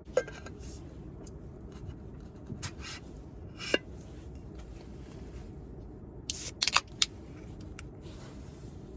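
A handful of short clicks and scrapes, as of camping gear or utensils being handled, over a steady low background noise. The loudest come in a quick cluster about two-thirds of the way in.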